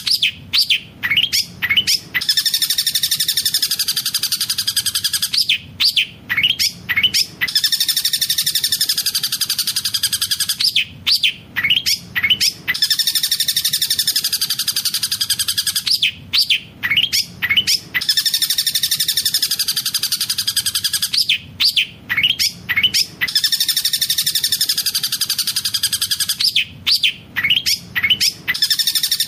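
Long-tailed shrike (cendet) singing a fast rolling song laced with mimicked tengkek buto calls. A quick cluster of sharp rising notes is followed by a long rapid trill, and the same phrase repeats about every five seconds, as in a looped training recording.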